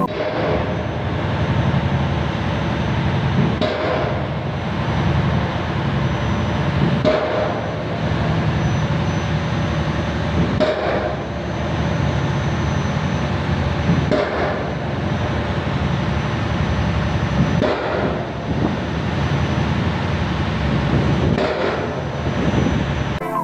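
Pile-driving hammer striking a steel pile, about six heavy blows at a steady beat of one every three and a half seconds, over a steady mechanical rumble.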